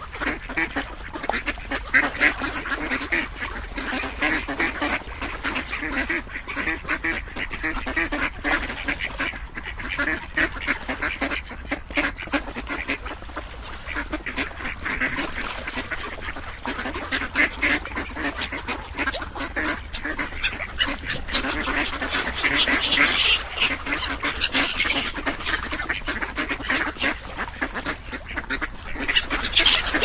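Ducks quacking over and over, the calls overlapping with hardly a pause, a little louder about three-quarters of the way through.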